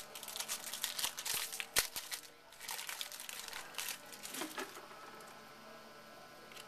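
Crinkling and rustling of a 2011 Bowman baseball card pack wrapper and cards being handled. There is a dense run of crackles for about four and a half seconds, then it goes mostly quiet.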